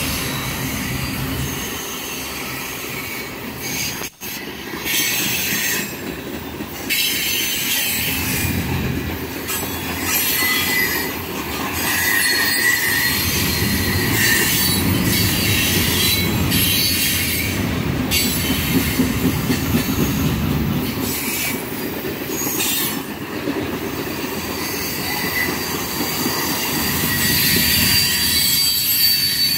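Freight cars of a loaded trash train rolling past close by: a continuous rumble of steel wheels on rail, with high-pitched wheel squeal coming and going over it and some clickety-clack of wheels over rail joints.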